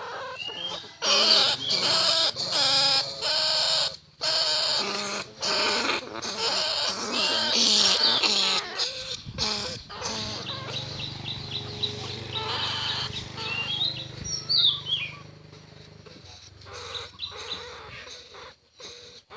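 Field rats, greater bandicoot rats among them, squealing and chirping in high, quickly repeated calls. About halfway there is a fast run of clicks, then a few short sliding squeaks, and the calls die down near the end.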